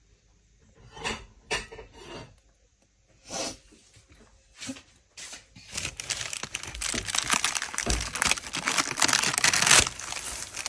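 Parchment baking paper crinkling and rustling as baked buns are handled on the tray. There are a few short rustles at first, then a dense run of crackling in the second half.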